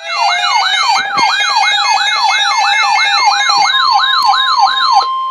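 Electronic alert siren: a fast falling sweep repeating about three times a second, layered over steady tones with a higher wavering tone above. It cuts off about five seconds in, leaving a single steady tone. It is the alert that heralds an Emergency Alert System warning broadcast.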